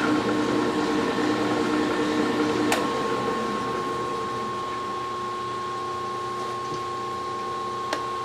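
Metal lathe running with a steady mechanical hum and whine while a small shaft in its collet is threaded with a hand-held die holder. There is a sharp click a little under three seconds in, after which the hum changes tone and drops a little, and another click near the end.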